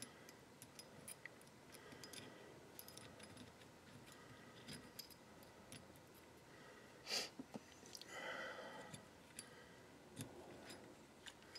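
Near silence with faint scattered clicks of small steel parts as a spring-loaded follower is fitted into the shell-holder block of a coaxial reloading press. One slightly louder click comes about seven seconds in, followed by a soft hiss.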